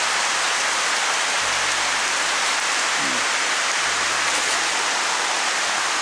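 Steady summer rain shower falling straight down, an even, unbroken hiss of rain.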